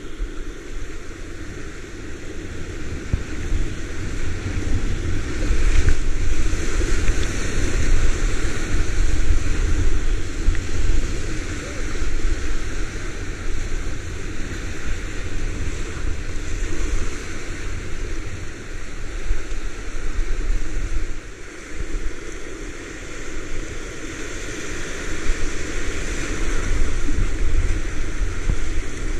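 Rushing whitewater of a river rapid heard from a paddleboard, with wind buffeting the microphone as a low rumble. The sound is steady, swelling louder in spells.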